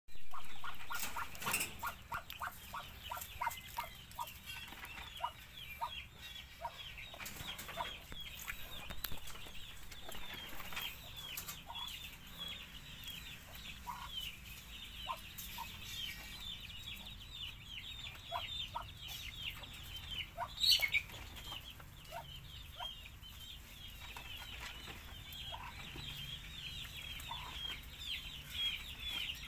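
Duckling peeping continuously: a steady stream of short, high, falling chirps several times a second, with one brief louder sharp sound about twenty seconds in.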